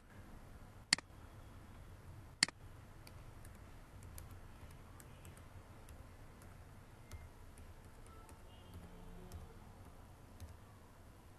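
Three sharp clicks in the first two and a half seconds, then faint, quick computer-keyboard keystrokes for several seconds as text is typed in.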